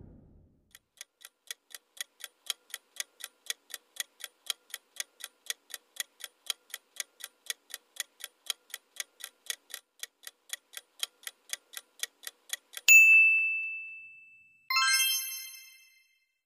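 Clock-ticking countdown sound effect, about four even ticks a second for some twelve seconds. Then comes a sharp high ding that rings out and fades. About two seconds later a fuller, multi-toned chime sounds as the answer is revealed.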